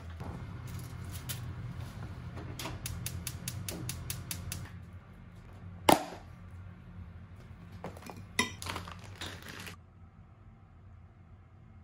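Kitchen handling sounds: dishes and utensils clinking and tapping over a steady low hum, with a quick run of light clicks, then one sharp ceramic clink about six seconds in. The sounds stop shortly before the end, leaving faint room tone.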